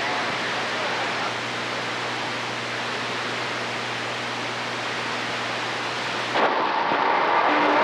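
CB radio receiver hissing with band static over a low steady hum. About six seconds in, the hiss changes abruptly and turns duller, and steady whistling tones come in.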